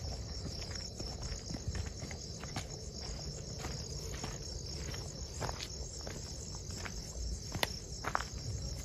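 Crickets chirping in a steady, high-pitched night chorus. Scattered footsteps and light clicks sound on a dirt-and-grass path.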